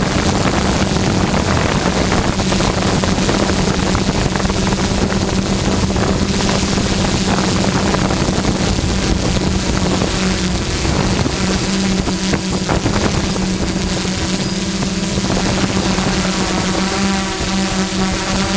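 A boat's engine running steadily, mixed with wind on the microphone and the whirring hum of a multicopter's propellers as it comes back to land on the ship. Near the end, a higher set of steady rotor tones rises as the drone gets closer.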